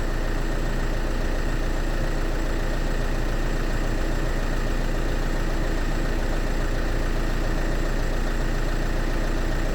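Opel Insignia's engine idling steadily, with no change in speed.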